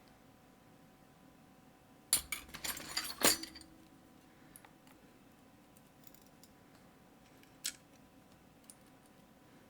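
Small metal pins and parts of a disassembled Mottura CP6 lock clinking as they are handled, a cluster of light clicks and clatter lasting about a second and a half, starting about two seconds in, then a single click near the end.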